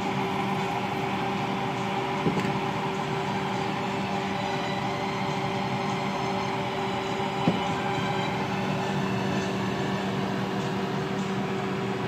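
A steady mechanical hum and whir with no change in pitch. Two light knocks come through it, one about two seconds in and one past the middle.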